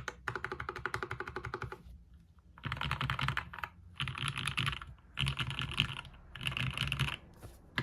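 Fast typing on a 60% mechanical keyboard with linear Gateron Ink switches, a UHMWPE plate and GMK keycaps. It starts with a steady run of rapid keystrokes, then after a short pause comes four dense bursts of about a second each.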